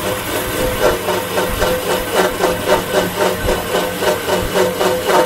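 Compressor opener cutting through the welded seam of a sealed reciprocating compressor's steel shell as the compressor turns. A steady motor hum with a regular pulse about four times a second.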